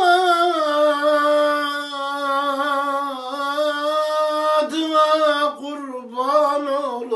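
A man singing an Urfa-style gazel, a Turkish uzun hava. He holds one long, wavering, ornamented note for about four and a half seconds, breaks briefly, then sings shorter ornamented phrases.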